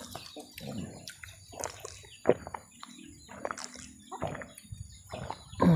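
Birds chirping in short, scattered calls, with a louder chicken-like cluck near the end.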